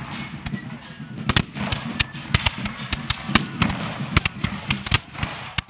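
Black-powder muskets firing in an irregular stream of sharp cracks, several shots a second at times, as a line of reenactors skirmishes.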